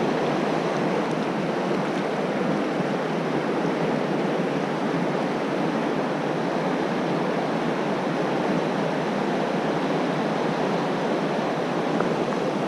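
Fast water of the Gallatin River rushing steadily over rocks in rapids.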